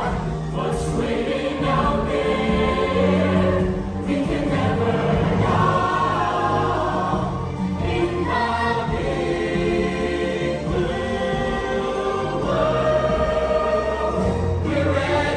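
Stage-musical song: a chorus of voices singing held notes over instrumental accompaniment.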